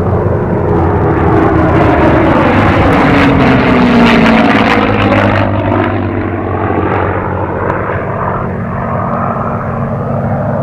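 A P-51D Mustang and a P-38 Lightning flying low overhead together, their piston V-12 engines and propellers droning. The sound builds to its loudest about four seconds in, the engine pitch drops as they pass, and then it eases as they move away.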